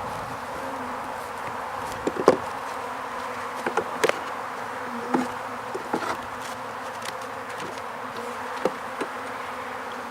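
Honeybees buzzing steadily around an opened hive, with a scatter of sharp wooden knocks and clicks as hive frames are handled.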